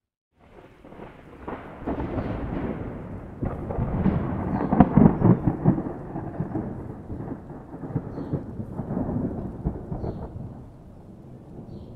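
A long roll of thunder. It starts about half a second in, builds to a crackling, rumbling peak around the middle, and dies away toward the end.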